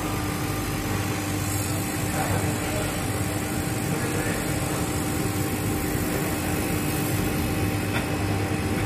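Richpeace automatic single-head pattern sewing machine running, stitching through fabric clamped in a template, with a steady, even machine hum.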